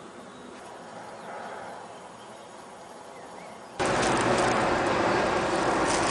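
Faint, quiet outdoor ambience by still water. A little before the end it cuts abruptly to a loud, steady rush of wind buffeting the microphone.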